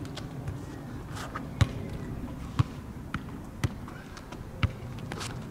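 Sharp knocks repeating about once a second over a low, steady background hum.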